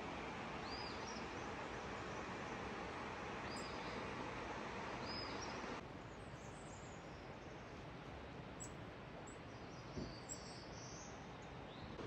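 Wild birds giving short, high chirps now and then over a steady rushing background hiss. The background drops slightly about six seconds in, and there is a soft thump near ten seconds.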